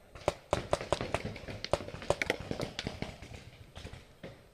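A rapid, uneven string of sharp cracks and knocks, about three to four a second, for roughly three seconds, then thinning out near the end.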